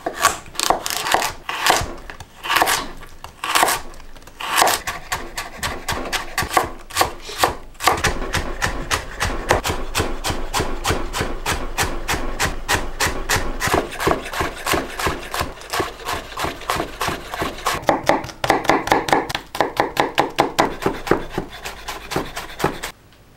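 Chef's knife cutting on a wooden cutting board. First come slow, separate slicing strokes through carrot. About eight seconds in it turns to fast, steady chopping of the carrot into fine dice, then mincing garlic near the end, and the chopping cuts off suddenly.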